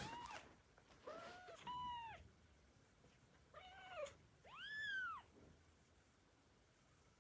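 A cat meowing repeatedly: about five short meows, each rising then falling in pitch. The last, a little before the middle, is the longest and loudest.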